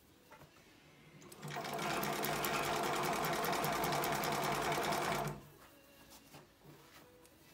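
Juki LU-563 industrial leather sewing machine running at a steady speed for about four seconds, stitching through leather and fabric. It starts a little over a second in and stops abruptly near the end.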